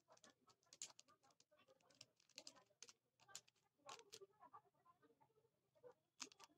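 Mirror cube turned by hand: faint, quick, irregular clicking of its plastic layers in short runs as the faces are twisted.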